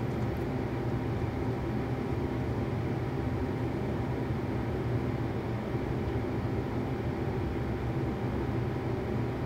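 A small motor running with a steady low hum, with a few faint steady tones above it.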